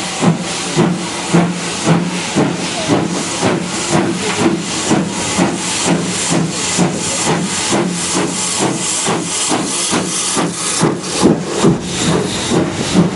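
Steam locomotive BR Standard Class 2 2-6-0 No. 78019 working a train away under steam, its two-cylinder exhaust chuffing in a steady rhythm of about two beats a second that quickens slightly as it gathers speed. The beats grow loudest near the end as the engine passes close beneath.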